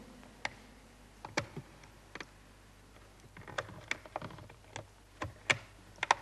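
A scattering of faint, irregular clicks and taps, a dozen or so, coming more often in the second half.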